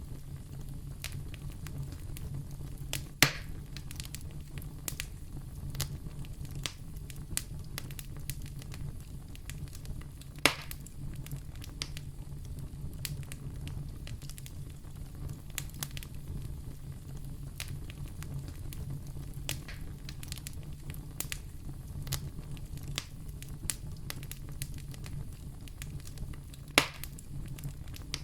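Wood fire burning in a fireplace, crackling steadily over a low rumble of the flames, with three louder pops from the burning logs.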